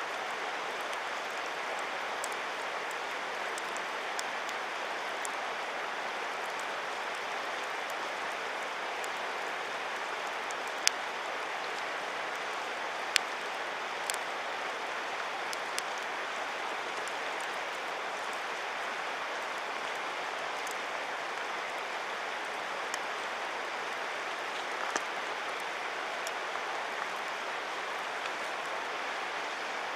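Wood campfire crackling: scattered sharp pops, the two loudest about eleven and thirteen seconds in, over a steady rushing noise.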